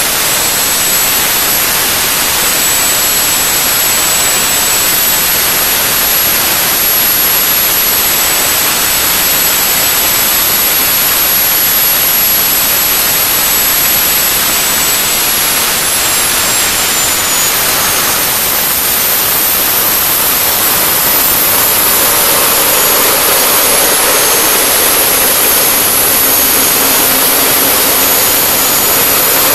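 Turbomeca Astazou 3N2 gas turbine running loud at close to full speed, a rushing roar with a high compressor whine. About two-thirds of the way through, the whine drops in pitch as the engine speed falls.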